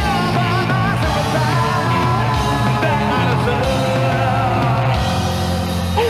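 Live rock band playing electric guitar, keyboards and drums, with a voice singing over them.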